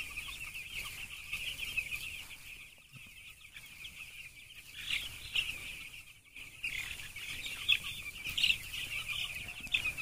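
A large flock of week-old broiler chicks peeping continuously, a dense high-pitched chorus with a few louder single peeps standing out.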